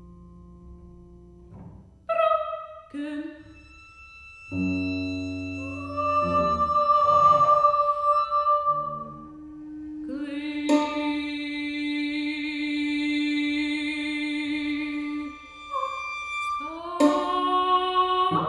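Contemporary chamber music for soprano, violin, cello and piano: long held notes, with a high wavering sung tone in the middle, broken by a few sudden loud attacks.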